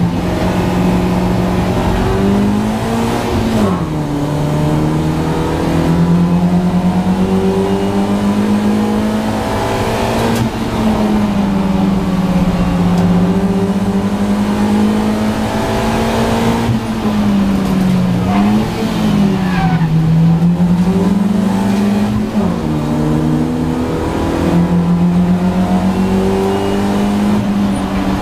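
BMW Compact race car's engine heard from inside the stripped cabin, pulling hard at high revs. Its pitch climbs slowly, then drops and climbs back about three seconds in, and again a few times past the middle.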